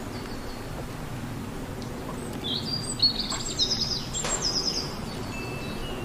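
A small bird chirping in quick, high-pitched trilled phrases for a couple of seconds mid-way, with a sharp click among them, over a steady hiss of outdoor background noise.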